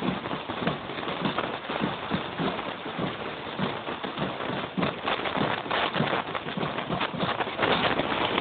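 Footsteps of people walking on a dirt path at a steady pace, about two to three thuds a second, under a rustling, crackly hiss that thickens in the second half.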